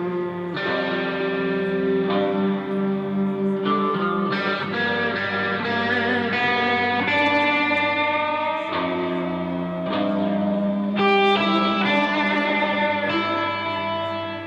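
Instrumental music on a plucked string instrument: a slow melody of held, ringing notes over a steady low drone.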